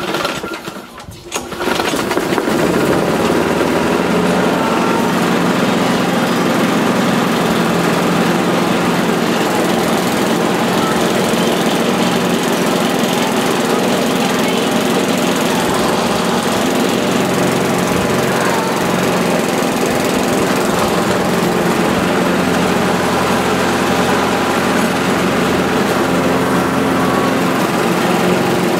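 Petrol lawnmower's small four-stroke engine starting about two seconds in, on its first run after standing unused for three years. It then runs steadily at a fixed speed while burning off white smoke.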